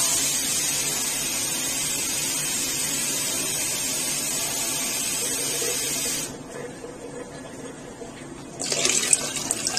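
Water poured from a container into a pot of lentils, a steady pour that stops suddenly about six seconds in; a short clatter follows near the end.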